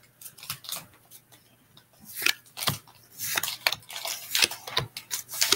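Pokémon trading cards being handled and slid against one another: short dry clicks and scrapes, sparse at first and coming thicker from about two seconds in.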